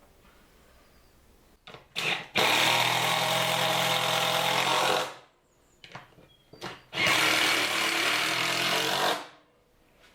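A power tool's motor run in two bursts of about two and a half seconds each, with a few short knocks just before each burst.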